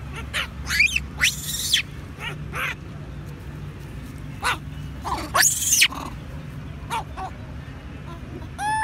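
Baby long-tailed macaque screaming in distress at being roughed up by an older monkey: shrill cries in two loud bursts, about a second in and around five seconds in, with shorter squeaks between and a short squeal near the end.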